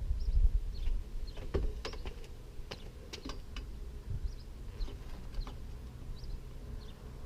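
Small birds chirping, short high calls repeated every second or so, with a few sharp clicks and taps between about one and a half and three and a half seconds in, and a low rumble at the start.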